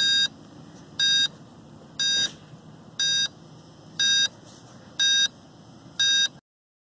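Electronic low-battery alarm of a Blade Chroma quadcopter setup, beeping once a second: seven short, high beeps warning that the flight battery is flat. The sound cuts off after the seventh beep.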